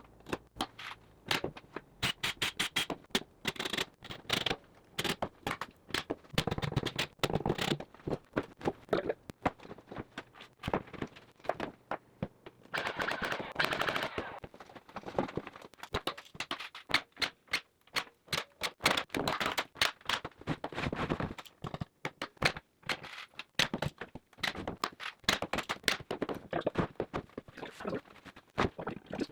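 Cabinet assembly: a fast, uneven run of sharp clicks and knocks from tools and panels, broken by a few short stretches of noisier tool running.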